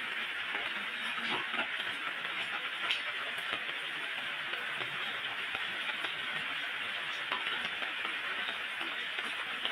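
Rain falling steadily on tile roofs and a wet paved lane: an even hiss with faint, scattered drop ticks.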